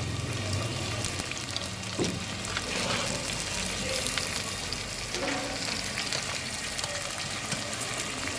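Battered tiger prawns frying in hot oil, with a steady crackling sizzle. This is the first quick fry that firms the shrimp. A short knock comes about two seconds in, with a few softer ones later.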